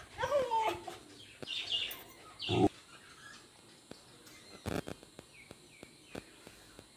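Small cage birds chirping in an aviary, with a few sharp knocks and thumps; the loudest thump comes about two and a half seconds in.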